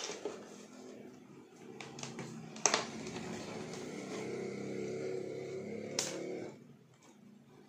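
A few sharp clicks or knocks, with a steady low drone from about three seconds in that stops about six and a half seconds in.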